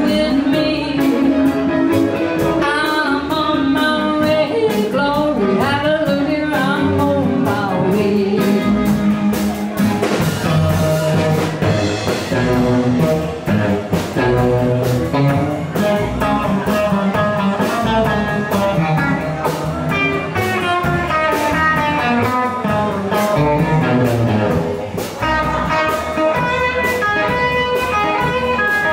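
Live blues band playing: electric and acoustic guitars over a drum kit with a steady beat, and a singer at the microphone.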